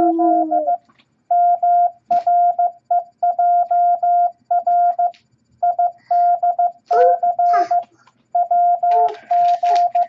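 MFJ-414 Classroom Morse Tutor sending random letters and numbers in Morse code at 15 words per minute: a single steady beep tone keyed on and off in dots and dashes, with short pauses between character groups.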